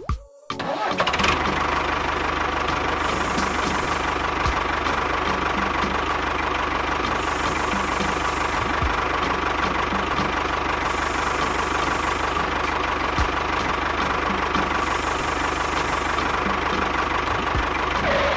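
Engine running steadily, starting about half a second in and cutting off suddenly at the end.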